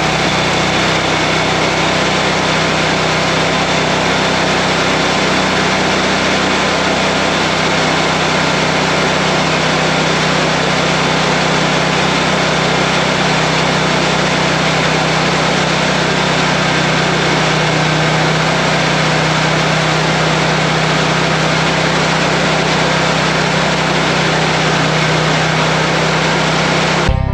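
Commercial lawn mower's engine running steadily under way, heard from on the machine, with a slight rise in pitch midway; it cuts off suddenly at the end.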